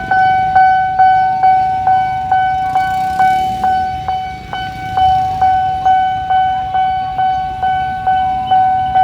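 Railway level-crossing warning bell ringing in a steady, even pattern, a little over two strikes a second, each ring dying away before the next. It signals that a train is approaching the crossing.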